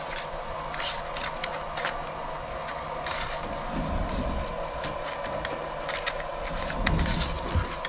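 Traxxas Maxx 2.0's plastic battery hold-down clip and battery being handled, giving a string of small clicks and scrapes over a steady hum.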